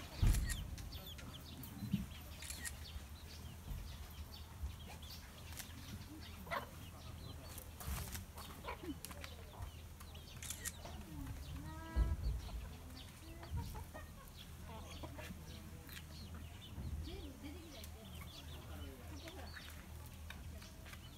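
Free-ranging chickens clucking softly and on and off throughout. There are a couple of low thumps, one at the start and a stronger one about halfway through.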